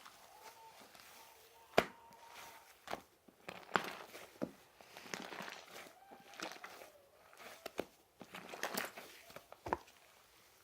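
Slime being squished, pressed and stretched by hand, with a run of crinkly squelching and several sharp pops as air pockets burst.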